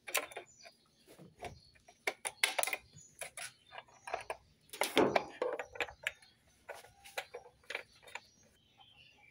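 Handling noise from refilling an engine: a string of irregular clicks, knocks and plastic rustles from the oil bottle and the oil filler cap being put back on, loudest about five seconds in.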